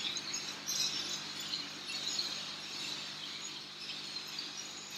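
Steady background hum of a room full of running aquarium tanks, with faint high chirping over it.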